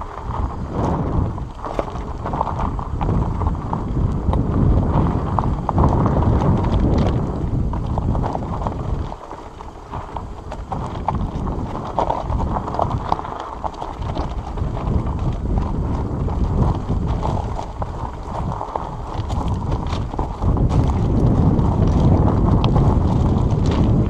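Fat-tyre tandem bicycle rolling over loose rocks and gravel: the tyres crunch and the bike rattles with many small clicks and knocks, with wind buffeting the microphone. The noise eases briefly about nine seconds in.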